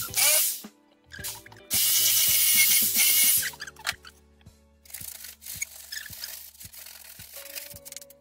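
A power tool running in two loud bursts, about a second and a half long each, the second starting near the two-second mark, over steady background music. Fainter rasping follows in the second half as the edge of the handle slot is filed.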